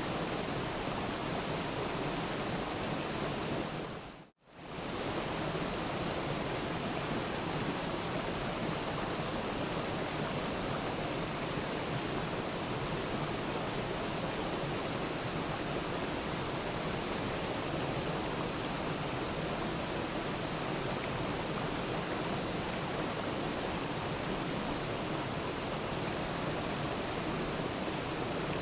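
Waterfall rushing in a steady, even roar of water. About four seconds in it fades out to near silence for a moment and fades straight back in.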